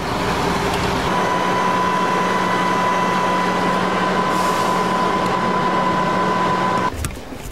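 Engine-driven tree-removal equipment running steadily with a constant whine, cutting off suddenly near the end.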